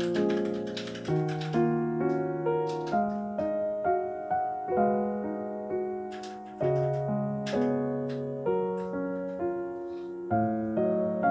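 Background piano music: a gentle melody of single notes struck about twice a second and left to ring.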